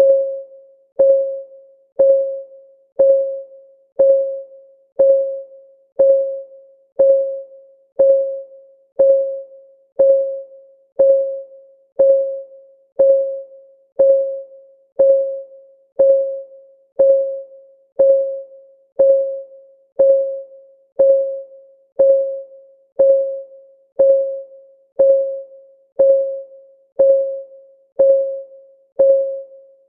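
Countdown timer's clock-ticking sound effect: one short pitched tick every second, each a single note that dies away within about half a second.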